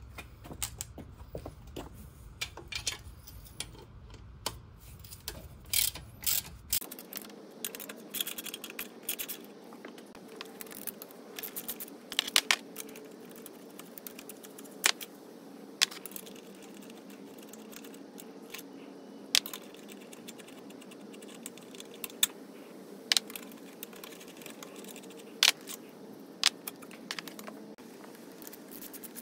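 Hand tools clicking and clinking on metal as bolts are worked on the engine cases of a Yamaha XT600: scattered sharp clicks and taps. A low hum underneath stops about seven seconds in.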